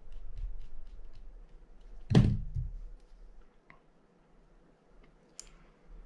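Light clicks from small reel parts and tools being handled, then one heavy thunk about two seconds in that dies away quickly, and a sharp click near the end.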